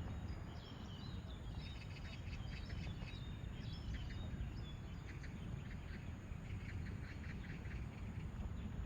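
Small birds chirping, with many short high notes in quick clusters over a steady low rumble.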